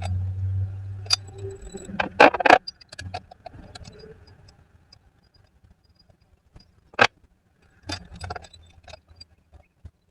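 Metal tools and parts clinking and clanking while working on a car engine: a low hum for the first second and a half, a quick cluster of clanks about two seconds in, then single clanks near seven seconds and a few more around eight to nine seconds.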